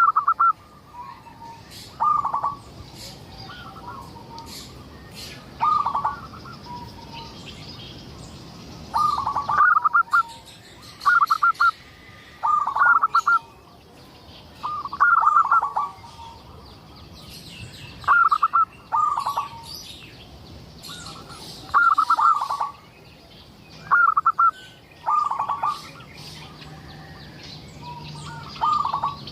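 Zebra dove (perkutut) cooing: short phrases of quick, bubbling coo notes, repeated every two to three seconds, over faint high chirping from other small birds.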